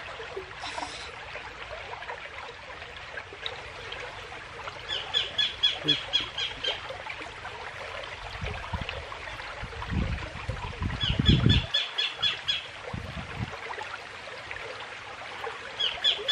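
Fast muddy stream rushing steadily, with a bird calling three times, each call a quick run of high chirps about five seconds apart. A few low thumps around the middle.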